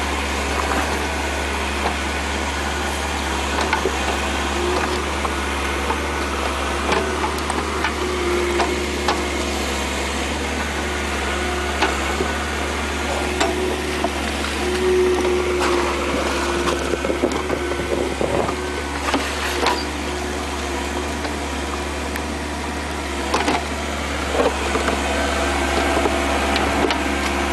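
Heavy machinery running steadily with a constant low engine hum, broken by scattered sharp knocks and clanks.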